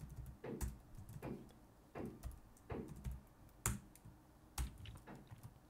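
Computer keyboard typing: separate keystrokes at an uneven pace, about one or two a second, a few of them louder clacks.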